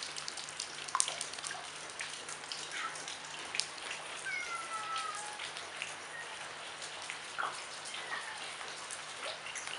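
Rain falling, with a steady patter of drops and small splashes on water. There is a brief high call a little before halfway through.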